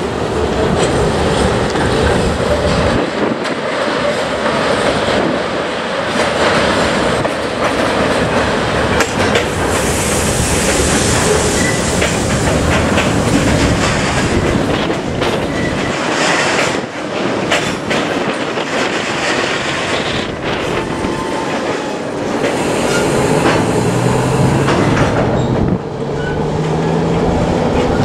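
Steel freight train rolling past: a steady, loud rumble of wheels on rail, wheels clacking over the rail joints, with stretches of high-pitched wheel squeal.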